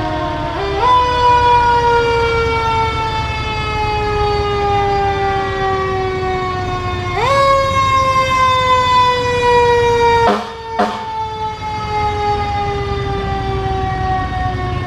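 Fire engine siren wailing. It climbs quickly in pitch twice, about a second in and about seven seconds in, then winds slowly down each time, over the low rumble of the trucks' engines. Two brief sharp clicks come about ten seconds in.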